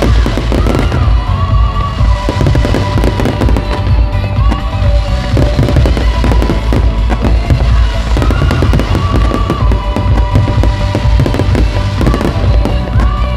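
Aerial fireworks display firing a dense, unbroken barrage of shell bursts: many rapid bangs and crackles, with music playing alongside.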